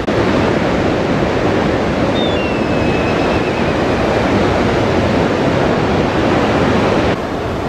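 Steady loud rush of surf and wind. About two seconds in, a black kite gives a thin, high whistle that falls in pitch. The rush drops off abruptly near the end.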